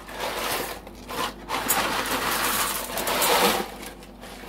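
Dry rotini pasta pouring from its cardboard box into a bowl: a continuous rattle of hard pieces falling and clattering, which stops about three and a half seconds in.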